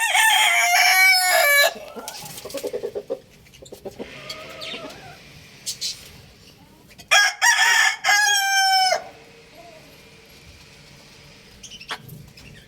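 Young rooster crowing twice: one long crow right at the start and another about seven seconds in, with quieter clucking calls in between.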